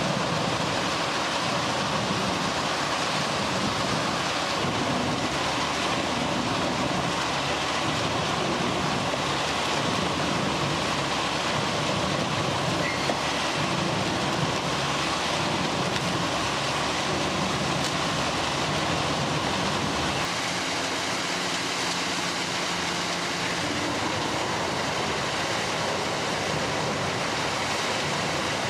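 Wood-grinding machine running, a steady, dense mechanical noise with no breaks. About twenty seconds in, the low end drops slightly.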